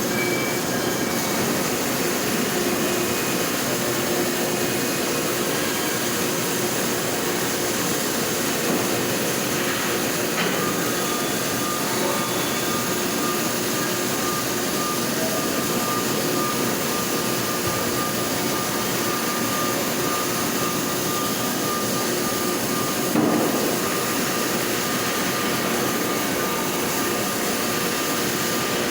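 Fanuc robot MIG welding: a steady, even hiss from the welding arc, with a thin steady whine joining about ten seconds in and a brief louder bump a little over twenty seconds in.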